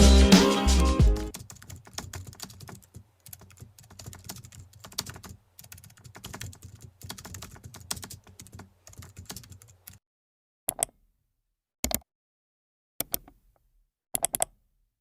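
Typing on a computer keyboard: a fast, faint run of key clicks, then after a pause four separate louder clicks about a second apart. The end of a music clip fades out just at the start.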